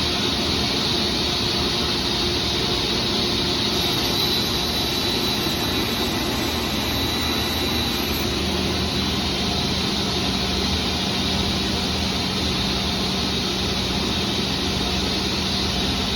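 Felder K700 sliding table saw running at full speed with a steady high whine as it rips a thin strip off the edge of a sheet, over the steady rush of the dust collector.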